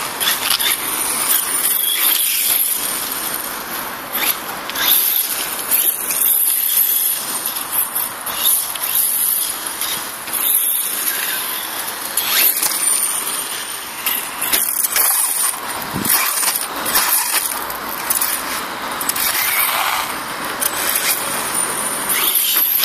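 Electric RC monster truck with a brushless motor driving around, a high-pitched whine of the motor and gears surging and easing with the throttle, along with tyre noise on asphalt and grass.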